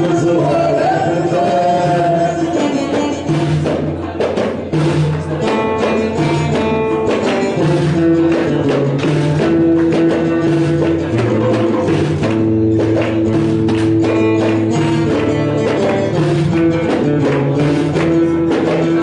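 Live Amazigh folk music: a frame drum struck by hand and a seated hand drum beat a steady rhythm under acoustic guitar, with a man singing at the start.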